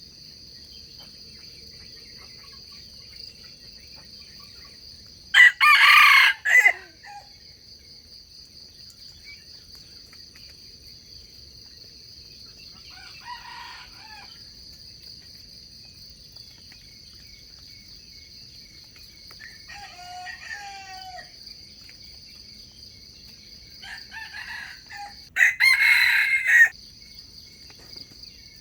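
Wild rooster crowing twice, about twenty seconds apart: short, loud crows. Fainter calls come between them, over a steady high insect drone.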